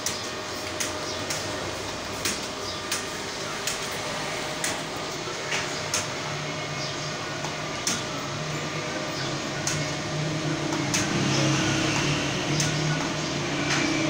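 Typing on a computer keyboard: irregular sharp key clicks, one or two a second, over a steady room hum. A low steady drone comes in about ten seconds in.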